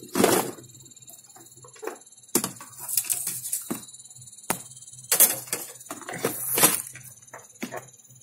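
Handling noise at an electronics repair bench: irregular clicks, knocks and rustling as parts, cables and the camera are moved about, with the loudest rustles near the start and about two thirds of the way through.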